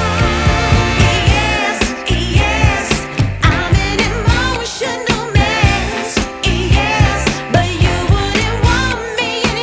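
Background music: a song with a wavering sung melody over a steady beat.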